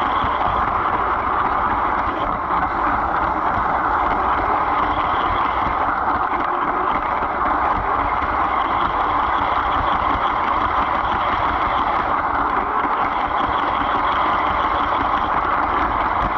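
A LEGO train running along plastic track, heard from inside a passenger car: a steady, even noise of motor, gears and wheels with no change in speed.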